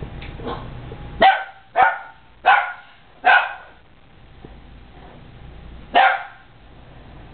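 An animal's short, loud calls, five in all: four coming roughly every two-thirds of a second from about a second in, and a fifth about six seconds in.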